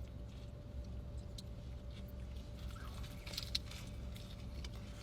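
Faint scattered clicks and crinkles of a burger being handled and eaten, bunching up a little past three seconds in, over a steady low hum.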